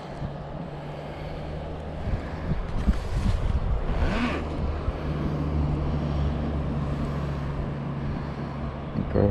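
Steady low hum of an engine running, with a brief rustle about four seconds in.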